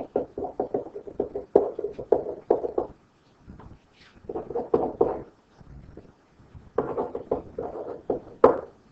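Pen stylus tapping and scratching on a writing tablet as words are handwritten: quick runs of small knocks and scrapes, in three bursts with short pauses between.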